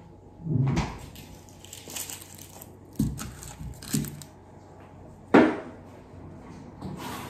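Kitchen handling sounds: a dull thud about half a second in as a refrigerator door is shut, then rustling and a few knocks as vegetables are set down on a granite countertop, with one sharp knock, the loudest, a little after five seconds.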